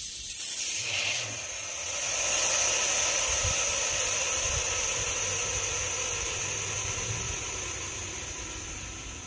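Compressed air hissing out of a three-stack pneumatic air-bag jack as it is released and the car's rear settles onto its freshly installed coil springs. The hiss comes up strongly about a second in, then fades slowly as the jack deflates.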